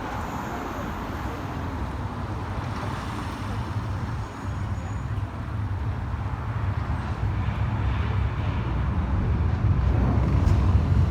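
Outdoor city ambience: a steady low rumble like traffic, which grows louder toward the end.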